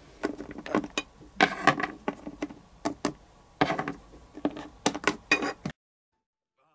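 Irregular hard plastic clicks and taps from small toy figures being moved and handled on a plastic toy set, stopping abruptly near the end.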